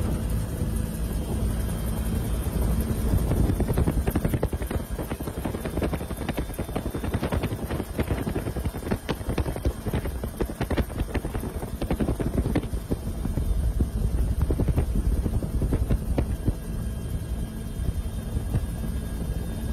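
Helicopter rotor and engine heard from inside the cabin: a steady low rumble.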